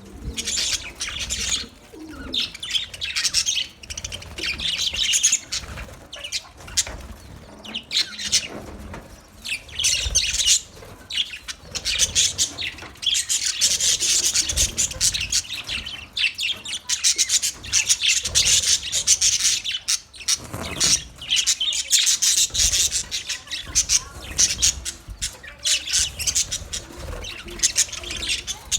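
Flock of budgerigars chirping and chattering together in continual overlapping calls, thicker in the second half.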